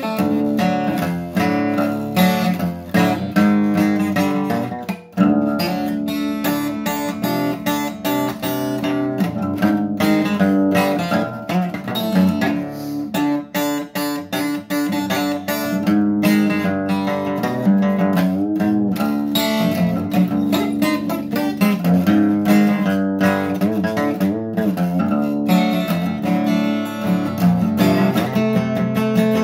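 Acoustic guitar strummed in a steady rhythm as an instrumental break, with a brief stop in the strumming about five seconds in.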